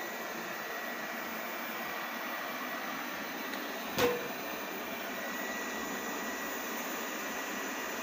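A eufy robot vacuum runs with a steady whirring hum. About halfway through there is one sharp knock as its bumper hits the base of a metal store shelf.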